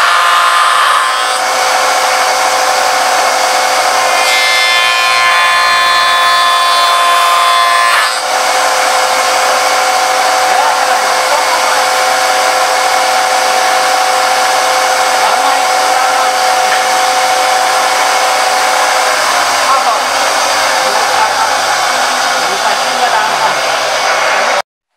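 Spindle moulder running loud with a steady whine, cutting a moulding on a board edge for the first several seconds, then spinning empty. The sound cuts off abruptly near the end.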